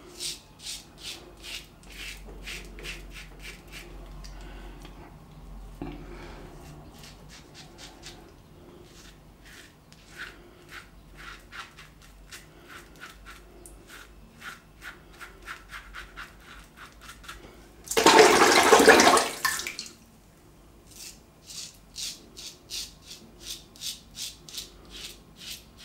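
Wilkinson Sword New TTO twist-to-open safety razor with a Dorco Titan blade scraping through lathered stubble against the grain, in short strokes about two or three a second. A loud rush of running water lasts about two seconds, some eighteen seconds in.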